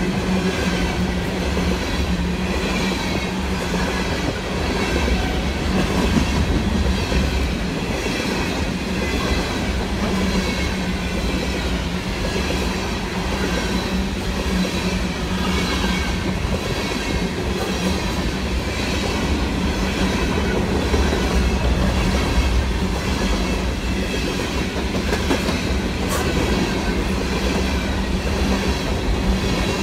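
A long freight train of open-top cars rolling past at close range: a steady rumble of steel wheels on rail, with an evenly repeating clickety-clack as the cars' wheels pass. One sharp click sounds near the end.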